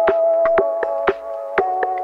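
Background electronic music: held synthesizer chords over a steady beat of sharp percussive hits, the chord shifting about one and a half seconds in.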